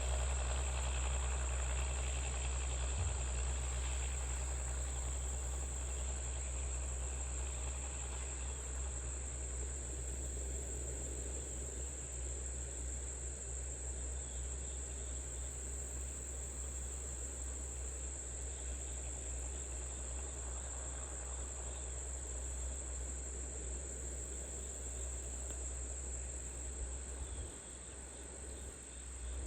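Allis-Chalmers D17 tractor engine running steadily as a low drone, with a steady high-pitched insect chirr over it. The drone eases off a little near the end.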